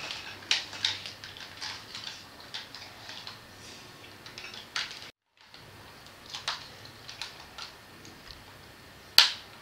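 Plastic parts of a Grimlock transformer toy clicking as they are handled, moved and snapped into place: a run of irregular small clicks with one sharper click near the end. About five seconds in there is a moment of dead silence.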